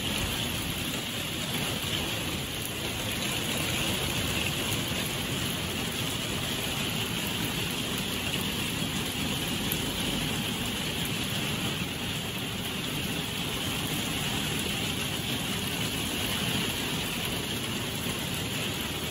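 Heavy rain pouring down steadily, splashing on wet patio paving: an even, unbroken hiss with no let-up.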